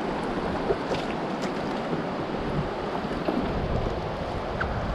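Steady rush of whitewater from a river rapid, with wind buffeting the microphone and a few faint clicks.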